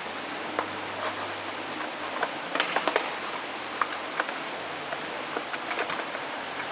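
Scattered light clicks and taps of a Hot Wheels toy package being handled while it is reboxed, with a cluster about two and a half seconds in, over a steady background hiss.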